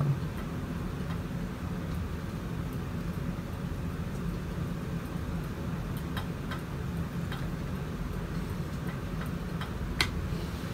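Steady low room hum with faint, scattered small clicks from makeup tools being handled, and one sharper click near the end.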